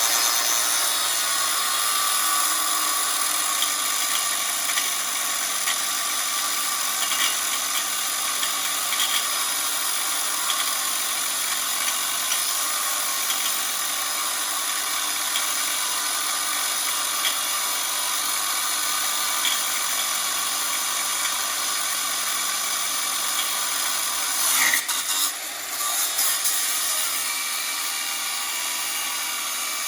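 High-speed grinder or cut-off tool whining steadily as it cuts through huck bolts holding a truck frame crossmember, its pitch wavering under load. It stops briefly about 25 seconds in, then starts again.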